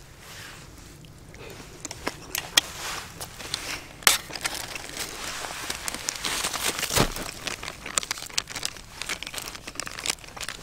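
Irregular crinkling and rustling of wrappers and gear being handled, broken by scattered sharp clicks and taps, the loudest about four seconds in and again near seven seconds.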